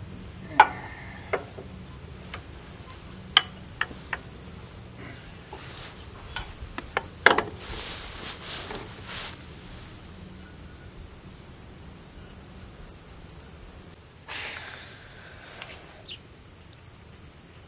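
Steady high-pitched chirring of crickets, with a few sharp clicks and knocks scattered through it, the loudest about half a second in and about seven seconds in.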